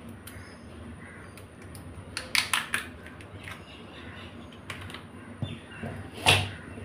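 Raw crab being broken apart by hand: the shell and legs crack and snap in a quick cluster of sharp clicks about two seconds in, with scattered smaller clicks and one louder sharp knock near the end.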